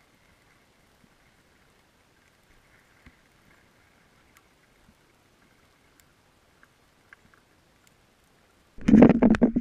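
Underwater camera audio: very faint, with a few scattered faint clicks and a faint steady high tone. Near the end a sudden loud rumbling, rushing noise cuts in.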